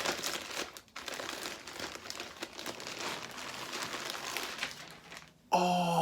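Packaging crinkling and rustling as it is handled and unwrapped to get at the shirt inside. Near the end, a loud, drawn-out vocal 'ohh' that falls in pitch.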